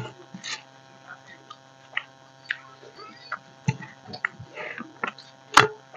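Eating by hand from steel plates: scattered small clicks, taps and wet smacks from fingers mixing rice and from chewing, over a faint steady hum.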